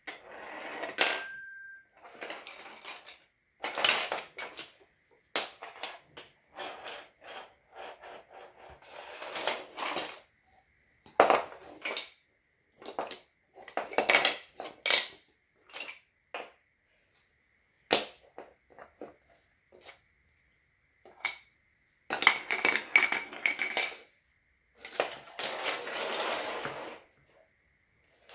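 Wooden pieces of a marble chain-reaction construction set being handled, fitted together and set down on a wooden floor: irregular clicks, knocks and clatter with short pauses between. A short metallic ping rings out about a second in.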